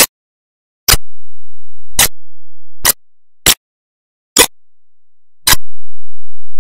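A ticking-clock sound effect: seven sharp, loud ticks, roughly one a second but not quite evenly spaced.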